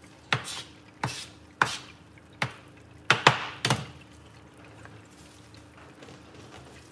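Kitchen knife chopping green onions on a cutting board: about eight sharp knocks of the blade on the board, unevenly spaced, over the first four seconds, then the chopping stops.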